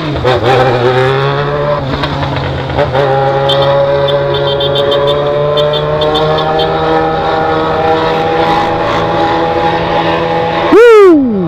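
Yamaha XJ6's inline-four engine through a 4-into-1 straight-pipe exhaust, pulling under way: the note climbs and breaks twice for gear changes in the first few seconds, then holds steady and rises slowly. Near the end a very loud sweep falls sharply in pitch.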